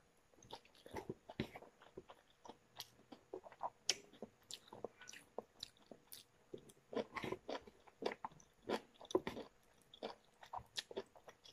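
A person chewing food eaten by hand, with irregular short wet smacks and clicks of the mouth close to the microphone.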